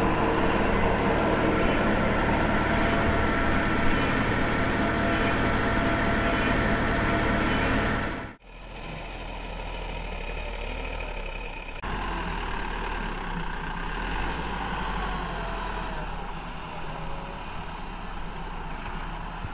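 Tractor diesel engine running steadily. About eight seconds in, the sound cuts off abruptly and is replaced by a quieter tractor engine, which comes from a tractor with a front-end loader working a pile of wet clay.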